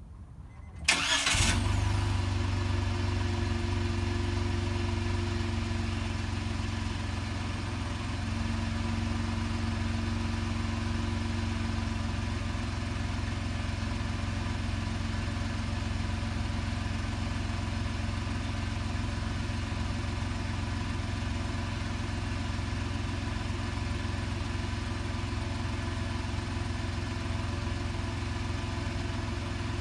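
A Honda N-One's 660 cc three-cylinder engine, already warm, is started about a second in with a short burst of cranking and catches at once. It then idles steadily at about 1,000 rpm through its exhaust.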